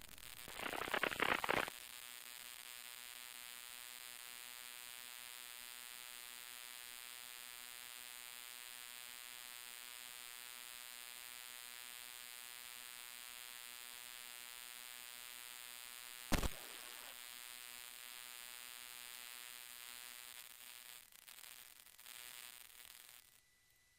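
Steady electrical buzz with many even overtones, after a short rush of noise at the start; a single click about sixteen seconds in, and the buzz cuts off shortly before the end.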